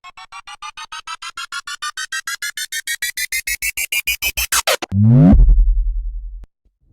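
Synthesized sound effect: a fast run of beeps that climbs steadily in pitch and grows louder for nearly five seconds, then breaks into a loud low tone sweeping downward over a low buzz that cuts off suddenly about a second and a half later.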